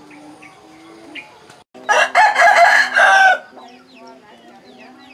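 A rooster crowing once, loudly, starting about two seconds in and lasting about a second and a half.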